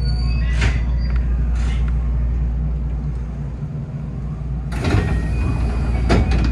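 Electric commuter train standing at a station with a steady low hum, broken by two short hissing bursts about half a second and a second and a half in, and a longer, louder burst of noise with a faint steady high tone starting near the end.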